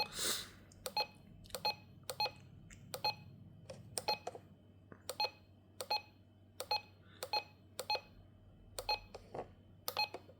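RadioShack 12-261 weather alert radio beeping once with each button press as its menu settings are stepped through. It makes a long series of short, identical beeps, roughly one to two a second, with small irregular gaps.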